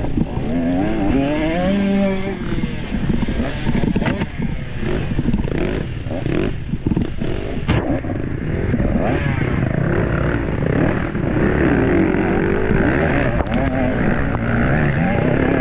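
Dirt bike engine revving up and down as the bike is ridden hard over rough trail, with a few sharp knocks and clatter from the bike hitting rocks and ruts about four to eight seconds in.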